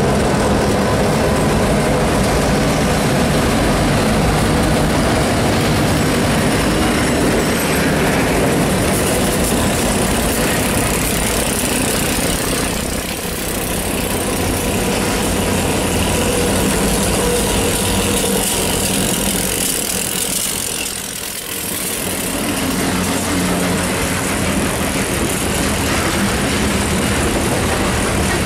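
A string of EMD GP38-3 diesel locomotives passing close by at the head of a heavy freight train, their engines running loud and steady. The sound dips briefly twice as the units go by.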